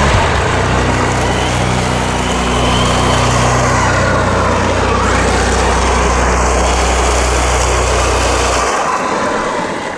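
Losi Super Baja Rey 2.0, a 1/6-scale brushless electric RC desert truck, running hard on loose gravel: motor and drivetrain whine over the hiss and spray of tyres on gravel. A steady low drone underneath stops about nine seconds in.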